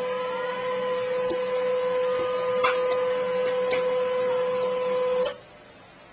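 A small motor running with a steady hum at one fixed pitch, cutting off abruptly about five seconds in.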